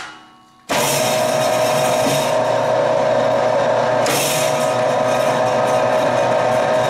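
A Baker Leader LB-503 planetary mixer starts up suddenly about a second in, and its motor and gear drive then run steadily at one pitch. A brief clatter about four seconds in comes as the speed-change lever is worked while the mixer runs.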